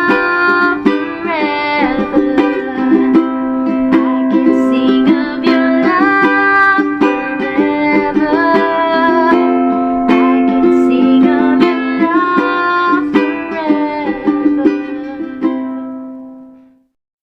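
All-mahogany D&D tenor ukulele playing a plucked melody over a ringing low note, ending on a last note that rings out and fades away about a second before the end.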